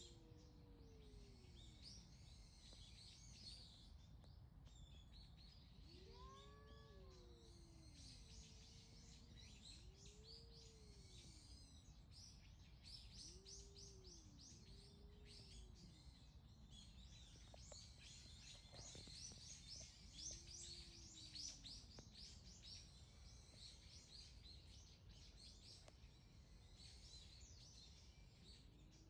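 Cat giving faint, low, drawn-out yowls, each rising and falling over about a second, about eight times at irregular gaps, the kind of yowl a cat makes when facing off with another cat. Birds chirp steadily behind.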